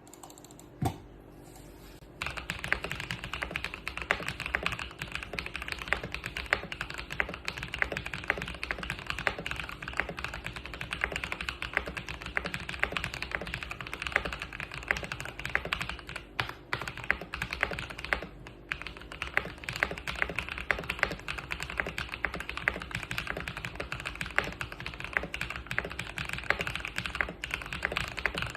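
Fast typing on a Keychron K4V2 mechanical keyboard with Akko Purple switches, lubed stabilizers, tape and foam mods, and PBT keycaps. A single key press comes about a second in, then a steady rapid run of keystrokes starts about two seconds in, with short pauses now and then.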